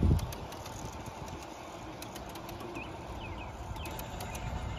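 G scale model freight train rolling past, its wheels clicking over the rail joints over a low rumble, with a dull thump right at the start. A bird chirps a few times near the middle.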